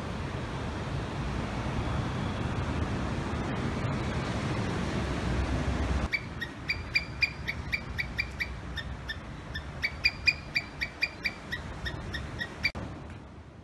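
Steady rush of surf and wind for about six seconds, then a palm squirrel's rapid series of sharp high chirps, about four or five a second, which stops near the end.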